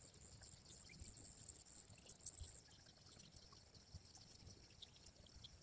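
Near silence: faint outdoor ambience with a thin, steady high-pitched hiss and a few faint ticks.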